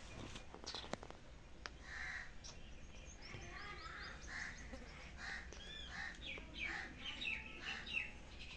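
Birds chirping: many short, high calls repeating irregularly from about two seconds in, after a few sharp clicks in the first second.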